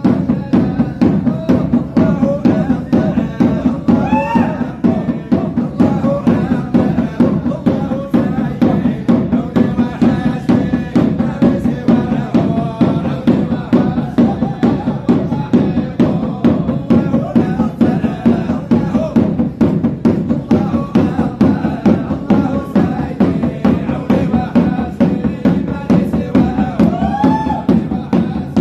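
A group of men chanting together over a steady beat on a hand-held frame drum, a Sufi dhikr chant on the name of God.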